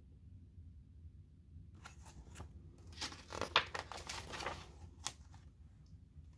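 Paper pages of a picture book being handled and turned: rustling and crinkling with a few sharp clicks, starting about two seconds in and dying away near the end.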